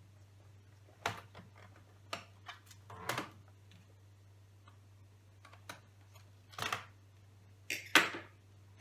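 Laptop case and parts being handled during disassembly: scattered plastic and metal clicks and short scrapes, with the loudest knock near the end, over a low steady hum.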